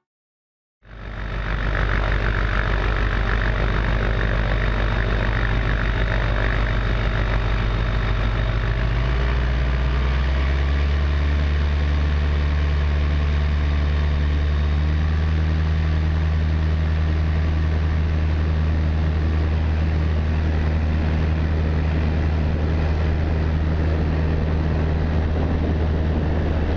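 Tecnam P92 ultralight's piston engine running steadily, heard from the cockpit. It starts abruptly about a second in, and its note steps up to a higher, steady pitch about nine seconds in.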